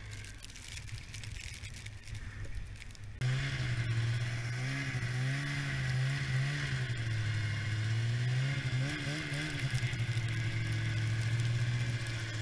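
1991 Yamaha Phazer II snowmobile's two-stroke engine running under way, its pitch rising and falling with the throttle. It is quieter and mixed with hiss for the first three seconds, then jumps abruptly louder.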